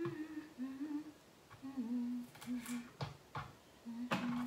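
A woman humming a slow tune. In the last second and a half there are three sharp chops as a knife cuts through cabbage onto a wooden cutting board.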